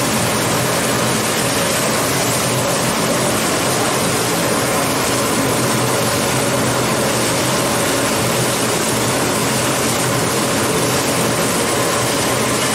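A steady mechanical hum and hiss, unbroken throughout, with no distinct knocks or changes.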